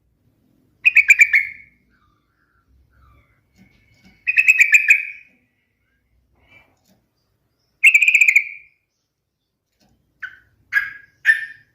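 Yellow-vented bulbul (trucukan) singing: three short phrases of rapid notes about three seconds apart, then three short single notes in quick succession near the end.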